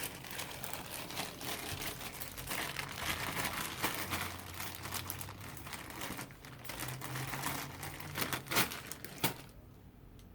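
Dense, irregular crackling and rustling of dreadlocks being handled and worked through the fingers, thinning out about nine seconds in.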